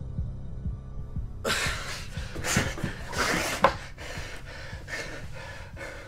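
A man panting and gasping hard after waking from a nightmare, his breaths quick at first, then easing off. A low, rhythmic, heartbeat-like throb cuts off about a second and a half in, as the panting starts.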